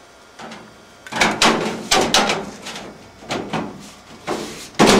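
Galvanized sheet-metal duct panels and a folded metal cleat clanking and scraping as the cleat is slid onto a duct edge: a string of irregular knocks and rubs, with a sharp clank near the end.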